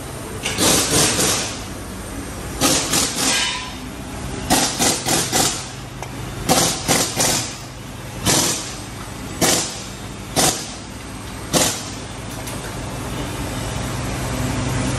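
Air impact wrench firing in short rattling bursts, three or four close together at a time and then single bursts about once a second, over a steady low hum.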